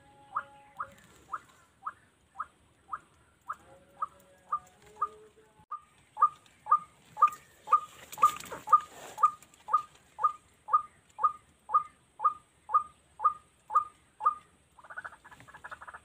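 White-breasted waterhen (ruak-ruak) calling: one sharp note repeated evenly about twice a second, getting louder about six seconds in. The notes stop near the end and a short buzzy rattle follows.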